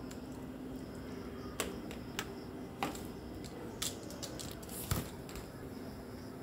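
A toy fishing rod and a plastic toy fish being handled: about five sharp little plastic clicks, spaced irregularly, the loudest about five seconds in, over a faint steady hum.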